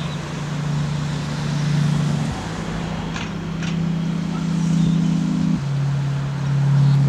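Low sustained chord, like a synth pad in background music, that moves to a new chord twice, about two seconds in and again near the middle.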